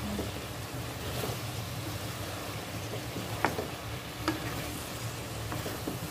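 A spatula stirring chopped elephant-ear (taro) stems frying with spices in a kadai, over a steady low sizzle, with two sharper clacks of the spatula against the pan a little past halfway.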